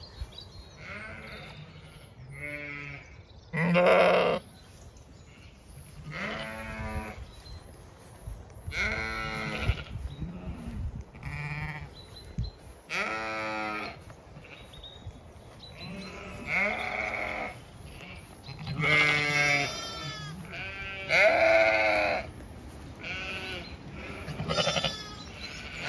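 Zwartbles ewe and her young lambs bleating back and forth, about a dozen calls a couple of seconds apart, some deep and some higher-pitched: a ewe calling for her lambs and the lambs answering.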